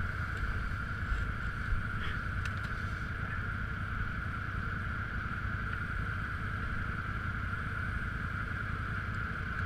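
Electric winch pulling steadily with an even whine, over the low rumble of an off-road vehicle engine, as a stuck vehicle is dragged out.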